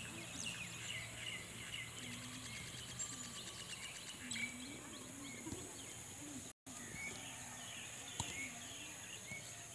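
Faint open-air ambience of a sports field: birds chirping on and off, with distant voices calling faintly.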